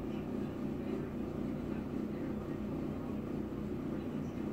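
A steady low hum with no change throughout, background noise of the room.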